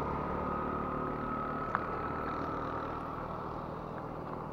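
A motor vehicle engine running steadily at low revs, with a thin steady whine over it, slowly fading. A single sharp click comes a little under two seconds in.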